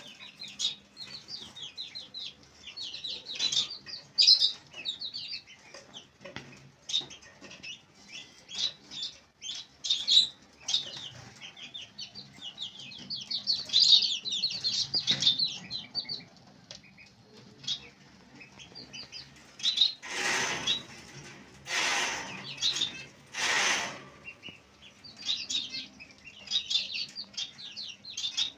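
A group of baby chicks peeping, a dense stream of short, high cheeps. Two-thirds of the way through come three loud rustling bursts of about a second each.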